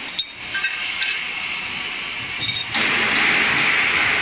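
Steel tools and parts clinking with a short metallic ring as a feed pellet mill's ring die and press rollers are taken apart: one clink at the start, one about a second in, and a quick cluster about two and a half seconds in. About three-quarters of the way through, a steady loud hiss sets in and carries on.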